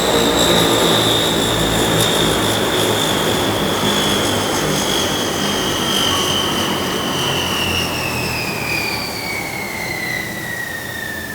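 Jet aircraft engine: a loud, high whine over a wide rumble, falling slowly and steadily in pitch as the sound gradually eases.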